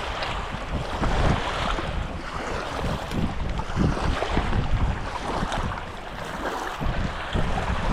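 Sea waves washing, with wind buffeting the microphone in uneven low rumbles.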